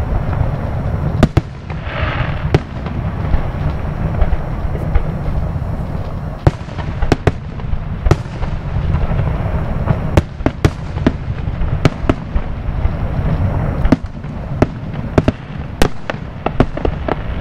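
Aerial fireworks shells bursting in an irregular series of sharp bangs, coming thick and fast about ten seconds in and again near the end, over a steady low rumble. A brief hiss sounds about two seconds in.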